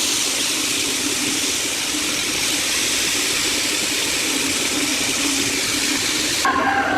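Wood lathe running, a steady hum under a continuous hiss. About six and a half seconds in it cuts off abruptly and a few steady tones begin.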